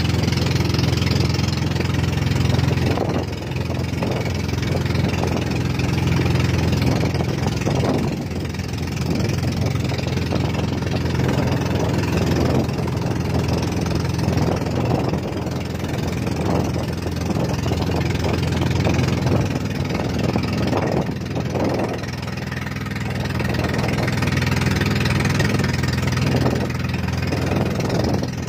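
Motorized outrigger boat's engine running steadily under way, its hum carried over a rush of wind and water.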